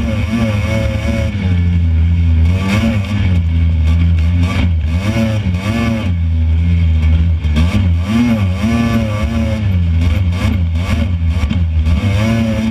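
Off-road buggy engine running under load on a rough dirt trail, its revs repeatedly rising and falling, with knocks and rattles from the open frame over the bumps.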